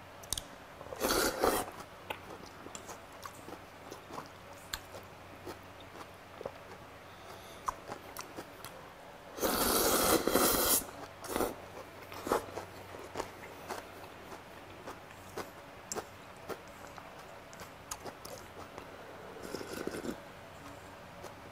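Close-up eating sounds of a person working through a bowl of cold raw-flounder soup (mulhoe): steady chewing and crunching of the crisp vegetables and fish, with loud slurps from the steel bowl, one brief near the start and a longer one about halfway through. Near the end comes a softer sound of broth being sipped from the bowl.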